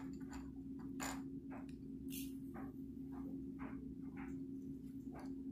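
Faint small clicks, taps and rustles of a black powder flask and powder measure being handled while a powder charge is measured out, with a brief hiss about two seconds in. A steady low hum runs underneath.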